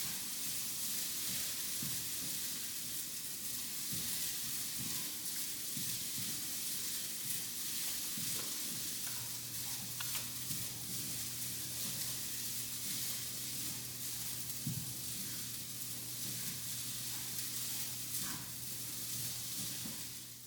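Turkey sizzling as it cooks, a steady frying hiss with small occasional crackles. A steady low hum joins about nine seconds in.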